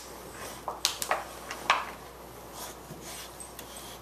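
Two Boxer dogs, an adult and a puppy, playing tug-of-war over a plush toy: a cluster of short, sharp sounds from the dogs in the first two seconds, the loudest near the end of that cluster, then quieter scuffling.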